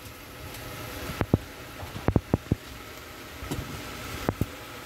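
Chopped onion and tomato frying in a stainless steel pot, a steady sizzle. Sharp clicks and knocks cut through it: a quick run of them from about one to two and a half seconds in, and two more near the end.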